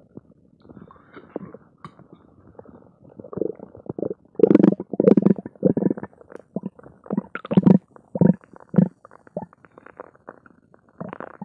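Human stomach growling and gurgling, recorded close against a bare belly: faint gurgles at first, then a run of loud, irregular gurgles from about a third of the way in that thins out near the end. The sounds of an empty, gassy stomach.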